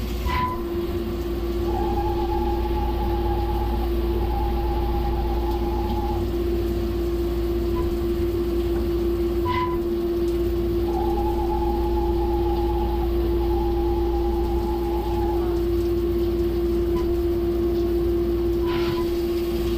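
Skyfire SVM-2 CNC mill running with flood coolant on an aluminum part: a steady hum throughout, with a repeating cycle about every nine seconds of a short click followed by two stretches of a higher whine, each about two seconds long.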